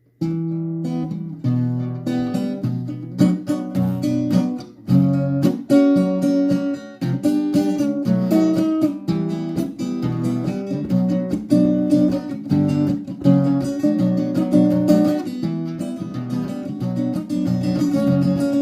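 Acoustic guitar strummed in a steady rhythm of chords, an instrumental passage with no singing, starting right after a brief break.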